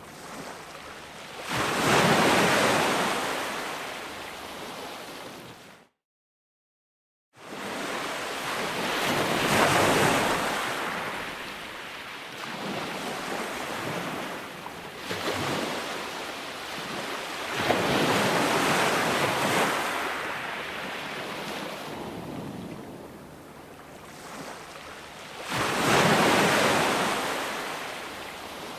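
Ocean surf: waves breaking in repeated swells that build and fade every few seconds. The sound cuts to complete silence for about a second and a half around six seconds in, then returns.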